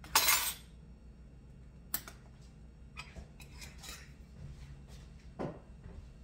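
Kitchen utensil clatter while measuring dried spices into a mixing bowl. A loud scraping rattle lasts about half a second at the start, then a sharp click, a few light ticks and a knock of jars and spoons.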